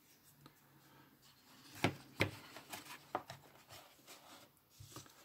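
Handling noise from a plastic phone wall charger and the box contents: several light clicks and knocks, the loudest about two seconds in, with faint rubbing between them.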